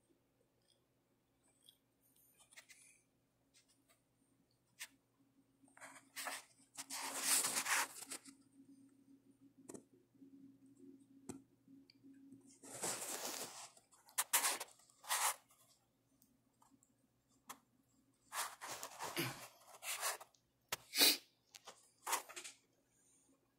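Irregular rustling and scraping noises, each about a second long, several of them about six, thirteen and nineteen to twenty-two seconds in, over a faint steady low hum.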